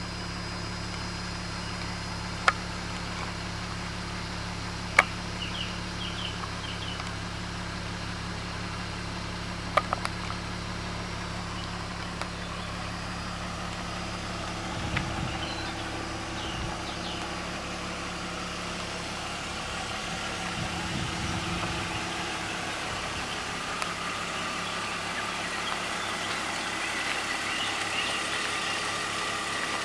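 BMW E46 320Ci's straight-six engine idling steadily. A few sharp clicks stand out in the first ten seconds.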